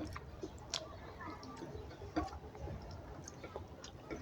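Eating sounds close to the microphone: a few irregular soft clicks and smacks of a mouth chewing a meal of rice and curry.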